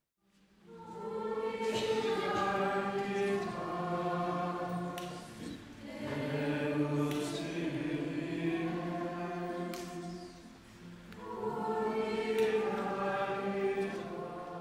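A choir singing a slow, chant-like hymn in three long phrases of held notes.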